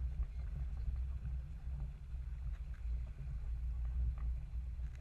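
Wind rumbling on the microphone and water running along the hull of an RS Feva sailing dinghy under way, with a few faint light taps.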